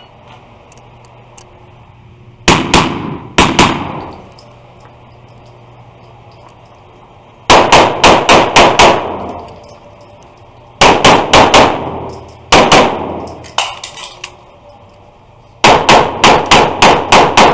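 Semi-automatic pistol fired in rapid strings at an indoor range: two quick pairs first, then strings of about five to seven shots, each shot echoing off the concrete walls.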